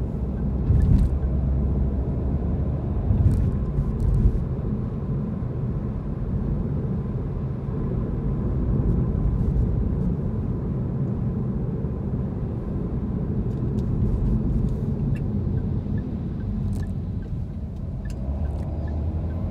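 Steady low rumble of a car driving on city streets, heard from inside the cabin: engine and tyre noise, with a few short louder bumps about a second in and again around three to four seconds in.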